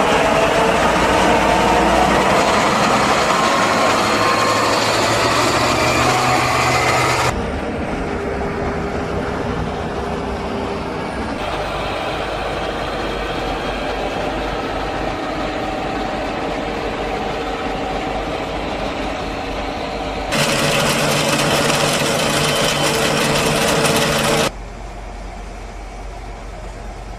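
Large John Deere tractor diesel engines working under load at a silage clamp, steady engine drone with a low hum, changing abruptly in level and tone four times.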